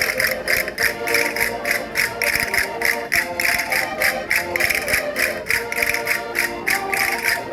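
Concertinas playing a lively folk dance tune, the melody carried over a steady percussive beat of about four strokes a second.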